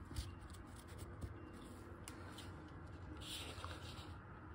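Faint rustling of a paper folder handled by gloved fingers as an animation cel is uncovered, with a couple of light taps in the first second or so and a longer rustle about three seconds in.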